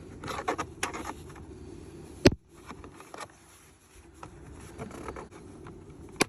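Hand work on the pickup's door and mirror mount: scraping and light clicks, a single sharp snap a little over two seconds in as a part comes loose, then another click near the end.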